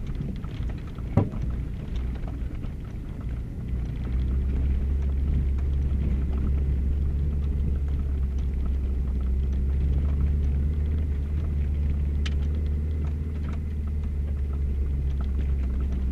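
Subaru Baja's flat-four engine and tyres on a rough dirt forest road, heard from inside the cabin: a low drone that settles into a steady, louder hum about four seconds in. Small knocks and rattles come from the suspension and cabin, with one sharp knock about a second in.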